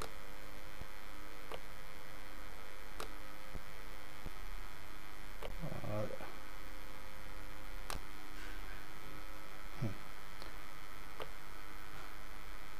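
Steady electrical mains hum with a few scattered computer-mouse clicks.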